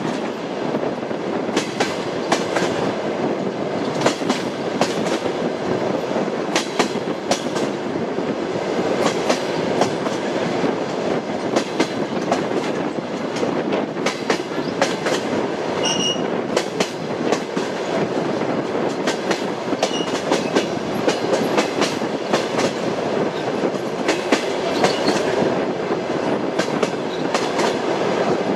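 Train wheels clicking over rail joints with a steady rumble as the train runs along. There is a short high squeak about halfway through.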